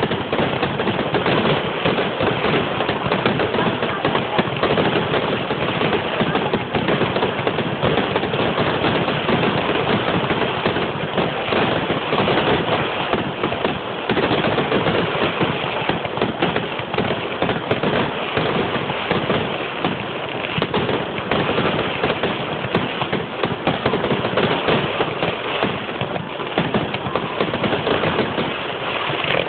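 Fireworks display in a dense, unbroken barrage: rapid crackling and banging bursts overlapping one another without a pause.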